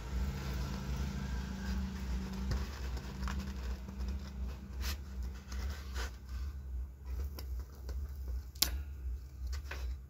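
Small clicks and taps of a soldering iron and solder wire being worked at a speaker cone's terminal lugs, with sharp clicks about five and about eight and a half seconds in, over a steady low hum.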